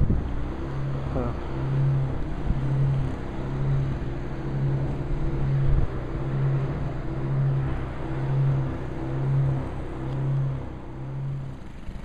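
An engine running, its low hum swelling and fading about once a second.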